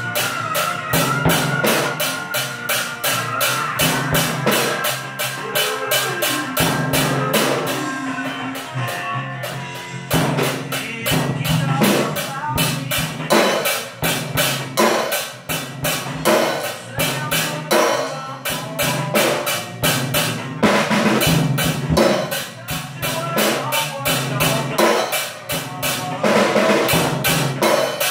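A child playing a Gammon junior drum kit, bass drum, snare and cymbals, in a steady beat along with a rock song playing back from a recording.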